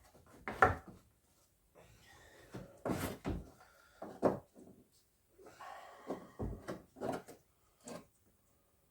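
Scattered clicks and knocks of plastic parts being handled, as the fog lamp's wiring connector is worked loose and plugged back in.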